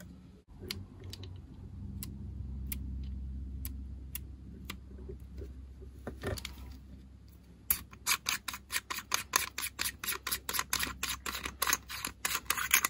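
An ArmaSight Tango6T rifle scope being handled: low rubbing and a few scattered clicks, then from about eight seconds in a fast, even run of clicks, about six a second, from a detented adjustment dial on the scope being turned.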